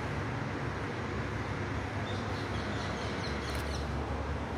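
Steady ambient noise of an open railway platform: a continuous low rumble and hiss, with a few faint high bird chirps about two to four seconds in.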